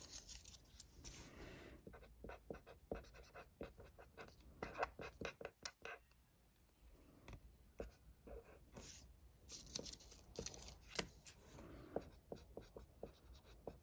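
Marker pen writing on small sticker paper: faint, short scratchy strokes in quick runs, with a brief pause about six seconds in.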